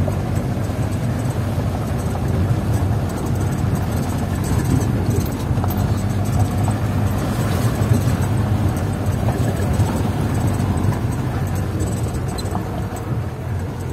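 Jeep engine and rough-road noise heard from inside its canvas-sided cabin: a steady low rumble with rattling haze over it.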